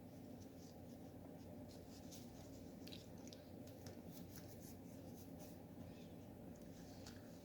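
Faint scratchy swishes of embroidery floss and needle being drawn through cross-stitch fabric, scattered irregularly over a steady low room hum.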